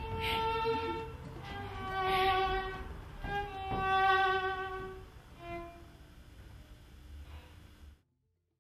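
Violin playing slow, long held notes, growing quieter after about five seconds and cutting off to silence near the end.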